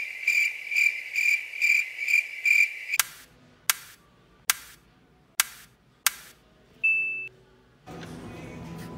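Cricket-chirp sound effect: a high, even chirp pulsing about twice a second, which cuts off abruptly about three seconds in. Five sharp clicks follow, a little under a second apart, then a short beep, and background music comes in near the end.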